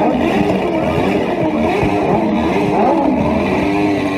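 Motorcycle engine with an open upright exhaust revved hard to the rev limiter while standing still, its pitch rising and falling over and over.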